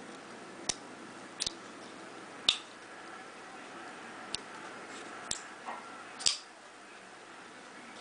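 Sharp clicks, six spread unevenly over several seconds, from small hand-held gear being worked: a slim black pen and a folding pocket knife that ends up opened. The two loudest come about two and a half seconds in and near the end.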